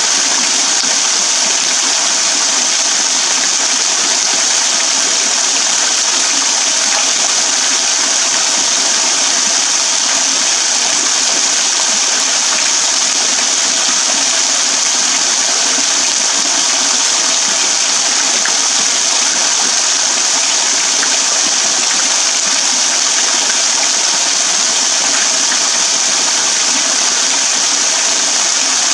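Small waterfall pouring off a rock overhang in thin streams and drops, splashing steadily into a shallow puddle and onto wet ground close by: an even, bright hiss of splashing water that does not change.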